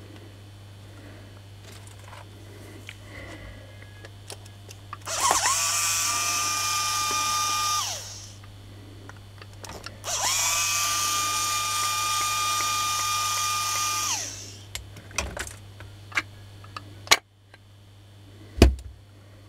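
Electric motor of a Makita 9237 CB polisher, opened up for repair, switched on twice. Each time it spins up quickly to a steady whine, runs about three and then about four seconds, and winds down. A few sharp handling knocks follow near the end.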